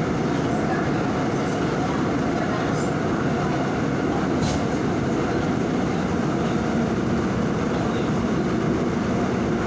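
Seoul Subway Line 5 electric train running at speed, heard from inside the passenger car: a steady running noise of wheels on rail and traction motors that stays level throughout.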